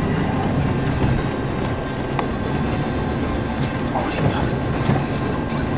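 Steady low rumble of a vehicle being driven on snowy roads, heard from inside the cabin, with a few faint clicks.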